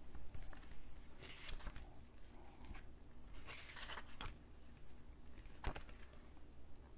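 Pages of a paper booklet being turned and handled: paper rustling in two short bursts, then a sharp tap a little over halfway through.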